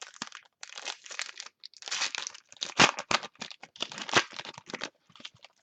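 A foil trading-card pack wrapper being torn open and crinkled: a run of crackly rustles with a few sharper crinkles around the middle, thinning out near the end.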